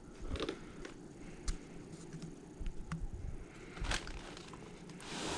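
Light handling noises: a handful of scattered small clicks and knocks as a VHS camcorder is turned and held in the hands.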